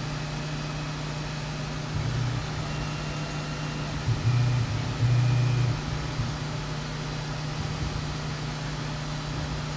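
Tormach PCNC 1100 mill's axis drives moving the table in three short jog moves, a pitched drone about two, four and five seconds in, over the machine's steady hum.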